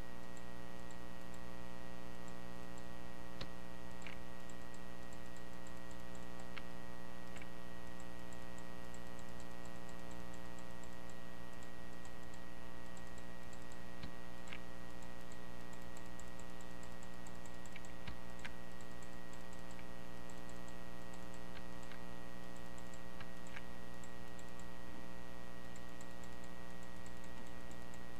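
A steady electrical hum made of many tones, with scattered single computer mouse clicks every few seconds as the clone tool is worked.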